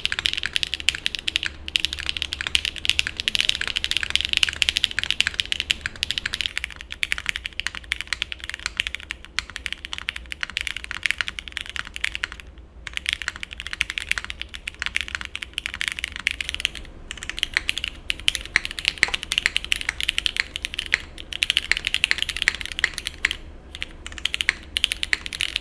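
Rapid typing on custom-built mechanical keyboards with lubed switches: a dense, continuous run of keystrokes with short pauses. The tone changes about six and a half seconds in, as typing moves to another board.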